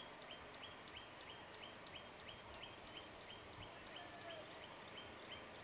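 Faint, even chirping, about three chirps a second, from an unseen small animal, with a soft short whistle about four seconds in.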